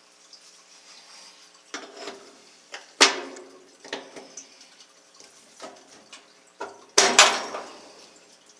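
Metal clanks and knocks from handling parts of a washing machine during disassembly, with a sharp clank about three seconds in and the loudest pair of clanks about seven seconds in.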